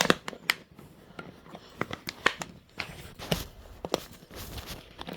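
Irregular clicks and taps of hard plastic water-bottle and drip-nozzle parts being handled and pressed together by hand.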